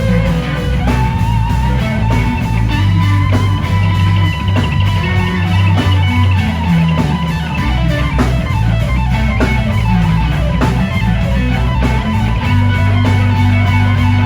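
Live rock band playing loudly. An electric guitar holds long sustained lead notes over bass and a steady beat.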